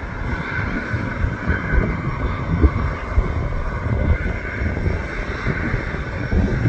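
Boeing C-17A Globemaster III's Pratt & Whitney F117 turbofan engines running steadily while the aircraft stands parked, a constant whine over a low rumble. Gusts of wind buffet the microphone throughout.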